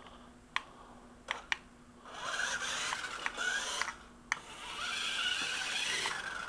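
Small remote-control toy cars' electric motors and plastic gears whirring in two spurts of about two seconds each, after a few light clicks.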